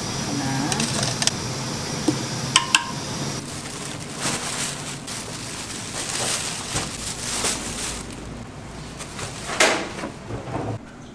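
Electric grinder running steadily with a hum and a high whine, cutting out about three seconds in, after which there are irregular scraping and rustling strokes and a knock near the end.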